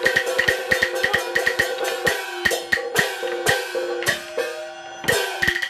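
Chinese opera percussion accompanying a glove-puppet fight: a fast run of sharp drum and woodblock strikes under ringing gongs and cymbals. The strikes thin out after about two seconds, some ringing tones slide down in pitch, and a short fast flurry comes near the end.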